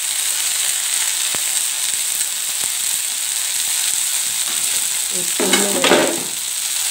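Chopped chaya leaves sizzling steadily in hot coconut oil in a frying pan. Near the end a wooden spatula stirs them, a brief louder rustle and scrape.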